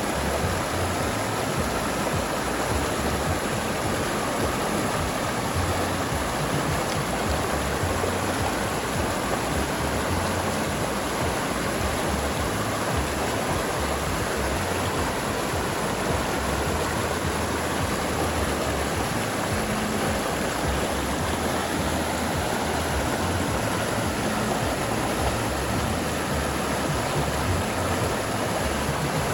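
River water flowing, a steady unbroken rushing.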